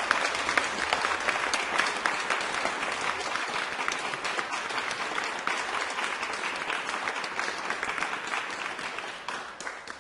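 Crowd applause, many hands clapping, dying away in the last second or so.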